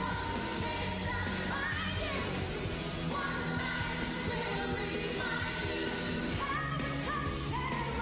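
A woman singing a power ballad-rock song live, holding long high notes that slide and step upward, over full rock band backing.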